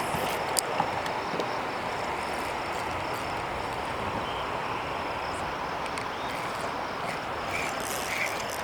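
Steady rushing background noise, with a faint high insect drone running through it and two light clicks just under a second in.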